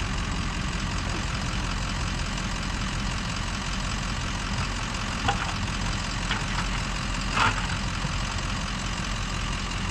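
A heavy engine idling steadily, with three brief knocks or clatters about five, six and seven and a half seconds in, the last the loudest.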